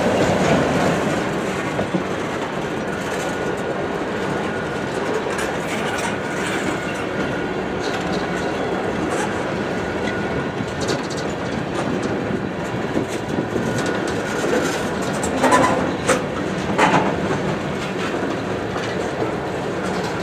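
Freight cars rolling past close by: a steady rumble of steel wheels on rail with light clicking, and a couple of louder clanks toward the end.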